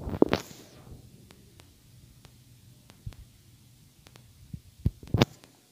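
Stainless-steel serving spoon knocking against a stainless-steel bowl while serving halwa: a sharp clink right at the start and another near the end, with a few faint taps between, over a low hum.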